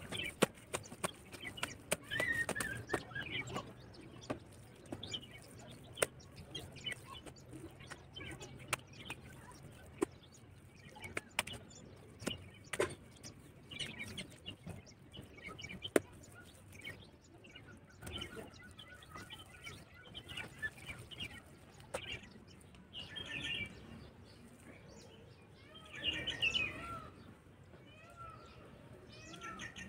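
Faint background of small birds chirping, with scattered soft clicks and taps and a denser run of calls near the end.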